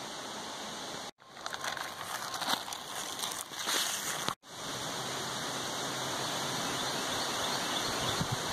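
Outdoor background noise on a camera microphone: a steady hiss that cuts off abruptly twice. Between the two cuts, from about one second to four seconds in, the noise is louder and uneven, a gusty rushing.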